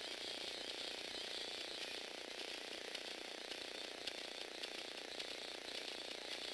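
Small electric motor and plastic gears of a Lego Technic six-legged walking robot running steadily: a high whine with scattered clicks of the leg mechanism.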